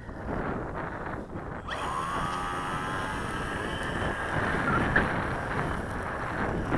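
Electric motor and propeller of a foam-board RC Storch spinning up for a takeoff run. About two seconds in the sound jumps up with a whine that rises in pitch and then holds steady. Wind buffets the microphone.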